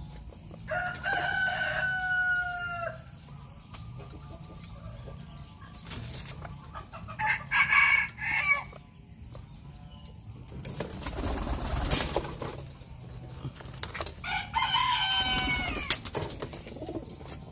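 Rooster crowing: a long call about a second in and another near the end, with shorter calls in between. A brief burst of noise falls around the middle.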